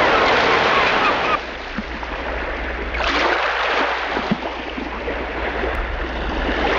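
Sea water rushing and splashing in waves, an even noise that drops back about a second and a half in and swells up again at about three seconds.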